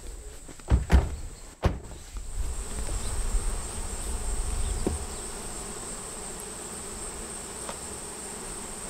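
Honeybees buzzing around an opened hive, with a thin, steady high-pitched insect drone behind them. A couple of sharp thumps sound about a second in.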